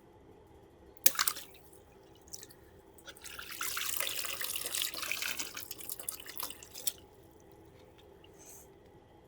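Balloon handling: a sharp, loud snap about a second in, then a hissing rush of about four seconds with small clicks in it.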